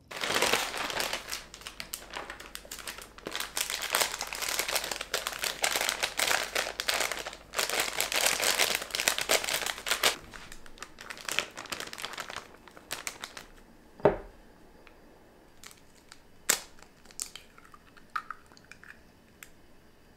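Pancake-mix bag crinkling and rustling densely for about ten seconds as it is handled and opened, thinning to scattered rustles. Then a single knock about fourteen seconds in and a sharp tap a couple of seconds later.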